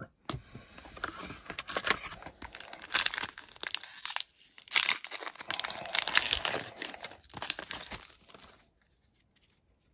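Foil trading-card pack wrapper crinkling and being torn open by hand, a dense run of crackles with louder rips near the middle that stops shortly before the end.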